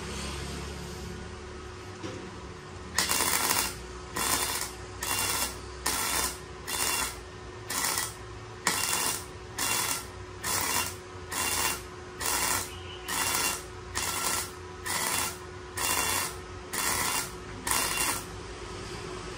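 MIG welding arc on thin stainless steel, crackling crisply in short, evenly spaced bursts a little more than one a second, starting about three seconds in. It is laid down in stitches so the thin tube does not burn through. A faint steady hum runs underneath.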